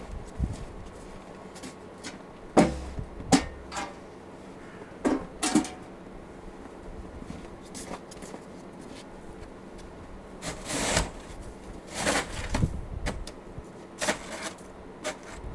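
Snow being cleared by hand with a snow shovel: a few sharp knocks in the first half, then longer scraping pushes in the second half.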